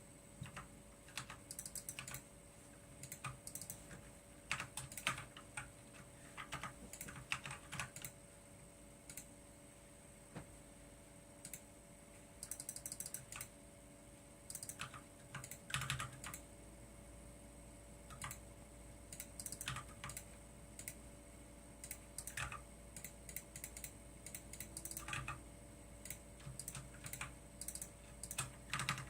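Computer keyboard being typed on in short runs of key clicks with pauses between them, over a faint steady hum.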